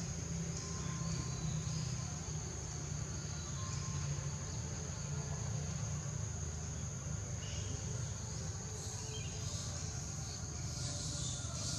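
Steady high-pitched drone of insects, swelling a little near the end, over a low steady rumble.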